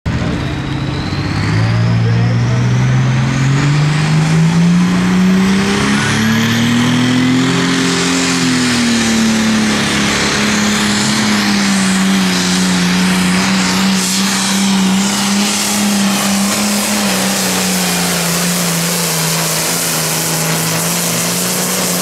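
Hot farm pulling tractor's diesel engine at full throttle during a pull. The engine note climbs over the first eight seconds, then holds steady and loud. A thin high whine rises over the first six seconds.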